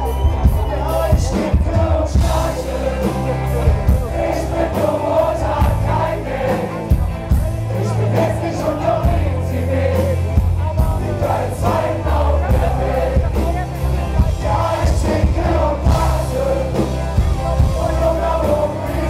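Live ska-punk band playing a loud song with drums, bass guitar and singing, the drum beat keeping a steady rhythm throughout.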